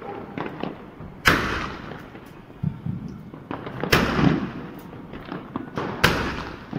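Cock Brand Tri Colour Angels aerial firework shells going off: three sharp bangs about two and a half seconds apart, with faint crackling between them.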